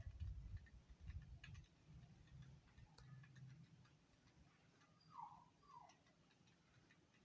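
Near silence: a faint low hum dies away over the first few seconds, with scattered faint ticks and two short chirps about five seconds in.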